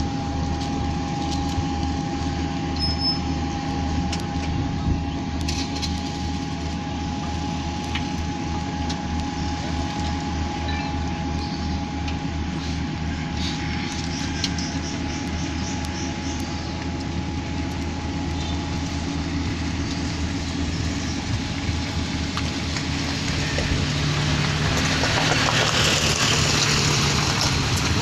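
Diesel engine of a road roller idling steadily, with a steady whine over the hum. Near the end a small truck drives past close by, louder.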